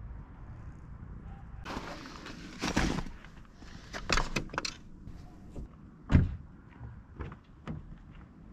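Gear being handled at an open car, with rustling and a few sharp clicks, then a car door shutting with a single heavy thunk about six seconds in.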